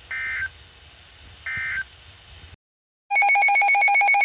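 Emergency Alert System end-of-message data bursts: three short, shrill two-tone digital chirps about a second and a half apart, marking the end of the severe thunderstorm warning. After a brief dropout, a loud steady electronic alert tone starts about three seconds in, leading into the next alert.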